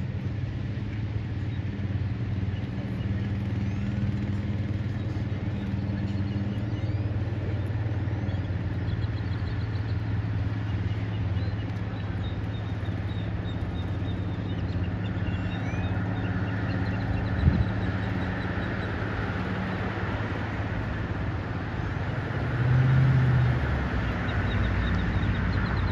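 A steady low engine-like hum, swelling briefly about 23 seconds in, with small birds chirping over it.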